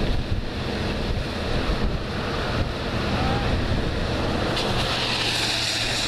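Wind buffeting the microphone with a heavy low rumble. About four and a half seconds in, a vehicle's tyres hiss on the wet road as it drives past.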